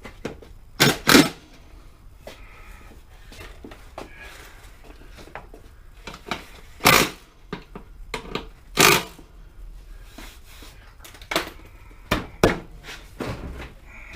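Irregular sharp knocks and clatters, about eight in all, the loudest pair about a second in.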